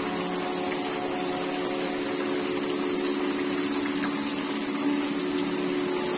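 Steady rain falling, an even hiss of drops, with a steady hum of several held low tones underneath.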